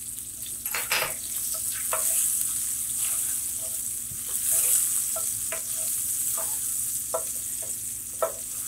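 Sliced green chili and ginger sizzling in hot oil with cumin and mustard seeds, a steady hiss. A wooden spatula stirs them round the frying pan, scraping and tapping it at irregular moments.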